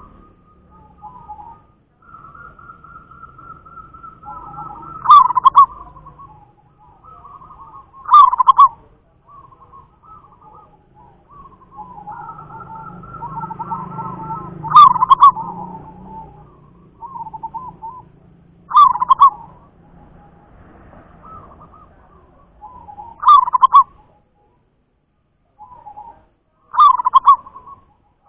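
Zebra dove (perkutut) cooing: six loud, short cooing phrases a few seconds apart, with fainter chirping notes in between.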